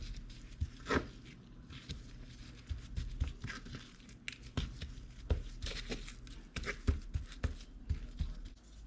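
Gloved hands handling and seasoning raw chicken: irregular rustling and crinkling with scattered light taps and clicks.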